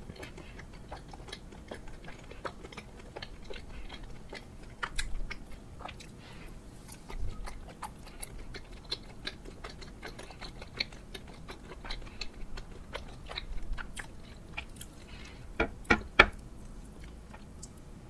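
A person chewing food close to the microphone: a steady run of small wet mouth clicks. Louder bites come about 5 and 7 seconds in, and a cluster of sharp, loud ones comes near the end.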